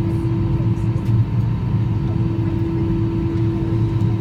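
Airbus A320 jet engines idling, heard inside the cabin: a steady low rumble with a constant hum.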